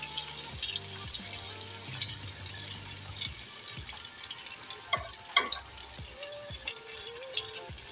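Green plantain slices (patacones) sizzling and crackling in hot oil in a frying pan during their second fry over a high flame. A few sharp knocks, likely from the metal skimmer, come about five seconds in.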